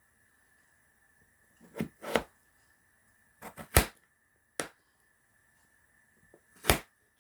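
Kitchen knife cutting through potato onto a cutting board: about seven sharp knocks in uneven groups, two, then three close together, then two single ones.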